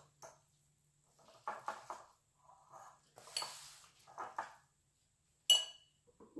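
Metal fork stirring noodles in a bowl: small runs of quick clicks and scrapes against the bowl, then one sharp ringing clink about five and a half seconds in as the fork is set down in the bowl.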